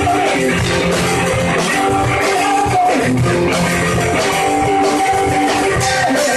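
Loud rock music: guitar playing over drums and bass.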